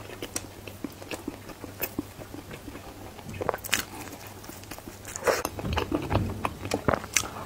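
A person chewing and biting a piece of matcha-filled lye-water pretzel bread, close to a clip-on microphone: scattered small crackles and wet mouth clicks, with a few louder bites a little past the middle.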